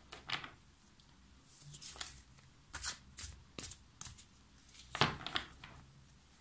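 A deck of Rumi oracle cards being handled and dealt onto a tabletop: irregular papery swishes and slaps, the sharpest about five seconds in.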